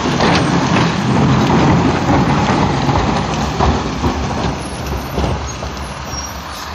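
Snowplow truck passing on the road, its engine rumble and road noise loud at first and fading gradually as it moves away.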